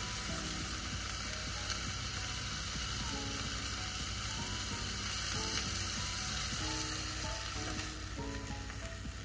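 Thin pork slices sizzling steadily in oil in a frying pan on a portable gas stove, as the cooked pieces are lifted out with chopsticks.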